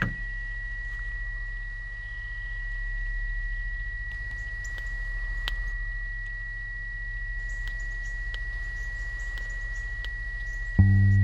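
Quiet outdoor ambience: a steady low rumble with a few faint bird chirps, under a constant high-pitched tone. Bass and guitar music cuts back in near the end.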